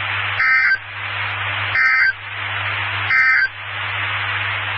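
Three short bursts of NOAA Weather Radio SAME digital data tones, about a second apart: the EAS end-of-message signal that closes the severe thunderstorm warning. A steady hiss of radio static runs between them.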